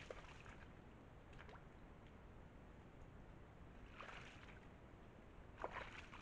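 Near silence with steady recorder hiss, broken by a few soft rustles and scuffs as a red deer stag moves its head and antlers in the grass and shifts its hooves: about a second in, again at about four seconds and near the end. No roaring.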